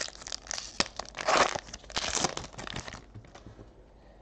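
Foil trading-card pack being torn open, its wrapper crinkling and crackling in a quick run of sharp rustles that stops about three seconds in.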